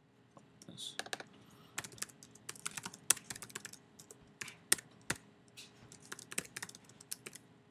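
Typing on a computer keyboard: irregular runs of keystroke clicks as a line of text is entered.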